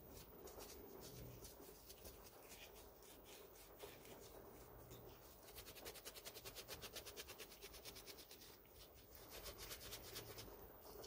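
Green abrasive scouring pad rubbed back and forth over the rusty lathe bed, faint scrubbing in runs of quick, even strokes about halfway through and again near the end, scouring off rust loosened by a gel rust dissolver.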